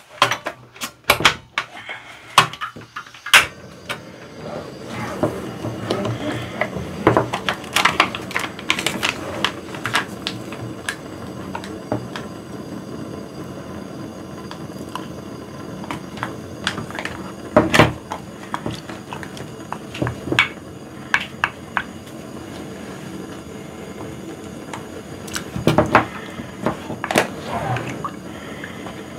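A portable butane gas stove being lit with a few sharp clicks, then the steady hiss of its burner under an earthenware pot. A wooden spoon knocks and scrapes against the pot as soybean-paste broth is stirred.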